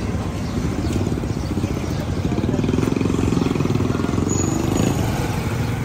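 Street traffic: a motor vehicle engine running close by. Its pitch rises and falls between about two and five seconds in, over a steady traffic hum.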